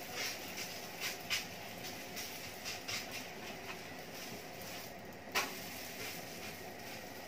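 Steady hiss from the stovetop, where a lidded pot is steaming, with short soft pats and rustles as hands press and turn msemen flatbread on a hot upside-down frying pan. One sharper pat comes about five seconds in.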